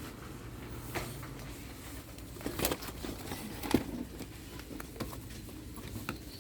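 Steady background hum of a shop with a few short knocks and clatters of items being handled, the sharpest about two and a half and nearly four seconds in.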